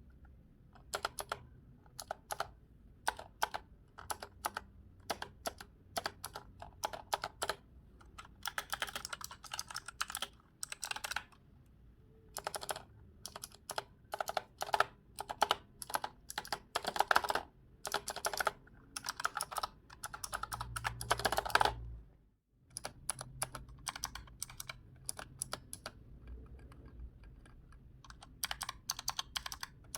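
Typing on a mechanical keyboard fitted with artisan keycaps: runs of clacky keystrokes broken by short pauses, with a brief gap about 22 seconds in.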